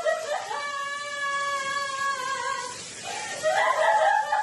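A high cry held on one steady note for about two seconds, then more voices near the end.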